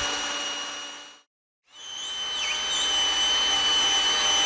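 Power drill running steadily and whining, driving a small 3.5 mm drill bit into the back of a machine casting. It cuts off abruptly about a second in, spins back up, and dips briefly in pitch as the bit loads up.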